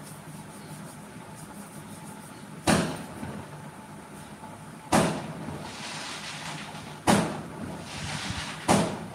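Four loud, sharp bangs roughly two seconds apart, each trailing off briefly, over a steady low hum.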